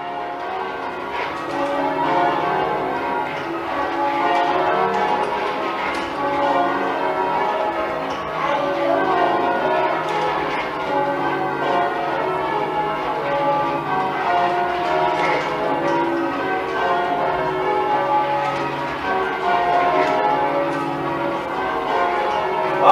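A ring of ten church bells being change-rung, the bells striking one after another in a continuous run.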